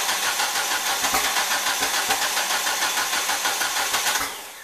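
Starter cranking the Nissan Sentra's turbocharged GA16DE 1.6-litre four-cylinder in a steady rhythm without the engine catching, then stopping about four seconds in. The cylinders are flooded with fuel.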